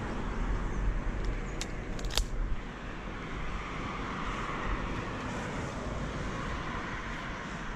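Steady rumbling noise of wind buffeting a helmet-mounted camera's microphone, with two sharp clicks about one and a half and two seconds in.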